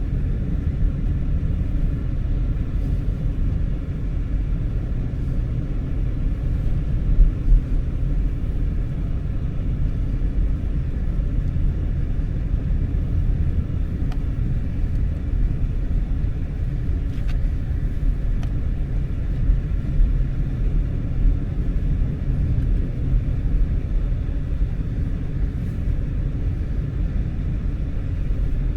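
Steady low rumble of a vehicle being driven, heard from inside the cab: engine and road noise.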